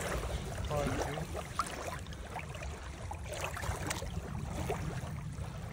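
Shallow lake water lapping and sloshing around a hand and a largemouth bass held in the shallows for release, with small scattered splashes and one sharper splash about a second and a half in.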